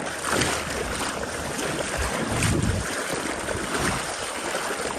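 Wind buffeting the microphone in irregular gusts over the steady rush of river water.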